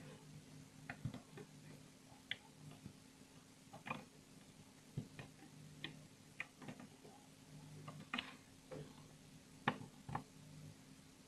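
Irregular light clicks and snaps from a metal hook knocking against the pegs of a plastic rubber-band loom as bands are caught and looped onto the next peg, over a faint steady hum.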